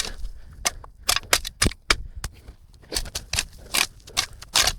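Footsteps crunching through overgrown ground: a dozen or so irregular sharp crunches and snaps, with a louder cluster near the end.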